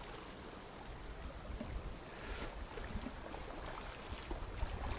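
Calm sea washing and lapping gently against rocks, faint and steady, with a slightly louder wash about two seconds in.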